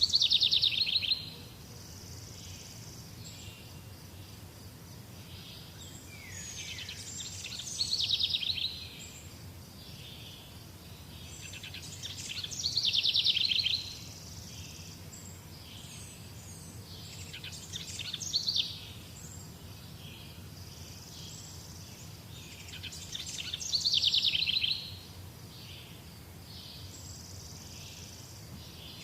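Songbird singing the same short phrase about every five seconds, each a rapid downward trill of a second or two, with fainter chirps between, over a steady low background hum.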